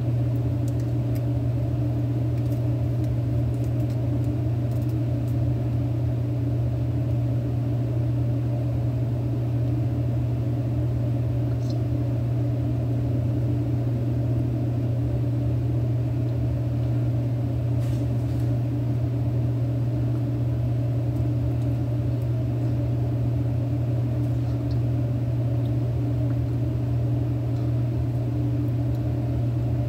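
A steady low hum that does not change, like a fan or motor running, with a few faint ticks.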